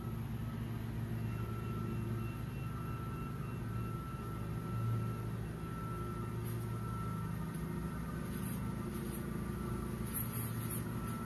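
Steady low rumble of distant traffic, with a faint steady whine above it and a few brief high ticks near the end.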